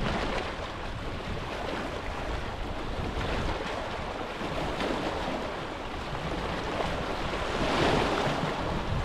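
Wind rushing and buffeting over the microphone, swelling in a louder gust about eight seconds in.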